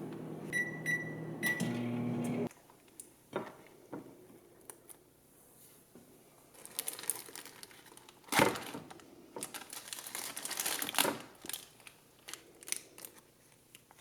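Microwave oven running with a low hum, beeping three times as its timer runs out and going quiet about two and a half seconds in. Crinkling and clattering of handling follow, with one sharp clack a little past the middle.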